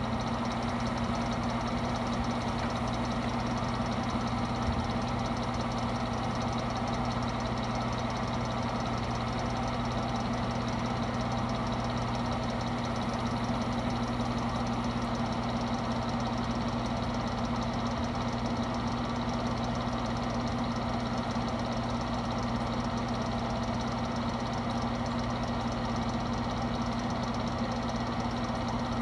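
Portable electric space heater running with its fan on: a steady whir of moving air over a constant low hum, unchanging throughout.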